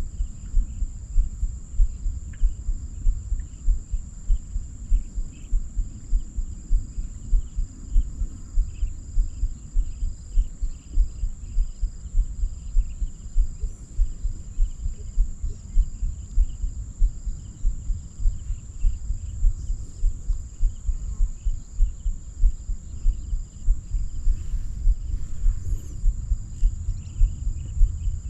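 Field insects, crickets or similar, chirring in a steady high-pitched drone. Beneath it a low, regular thudding pulses about three times a second and is the loudest sound.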